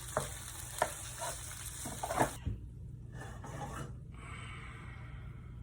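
Perch fillets sizzling as they fry in a pan, with a few light clicks of a utensil. The sizzle cuts off suddenly about two and a half seconds in, leaving only a low hum.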